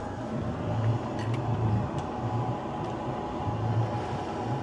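Yanmar 4JHE four-cylinder marine diesel of a sailboat running at low speed while the boat leaves its berth: a steady low throbbing hum.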